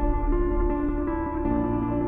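Soft ambient background music: slow sustained notes over a steady low bass.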